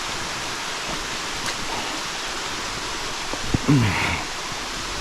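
Waterfall rushing steadily, running full after recent heavy rains. About three and a half seconds in, a short falling voice sound, like a grunt or exclamation, is heard over the water.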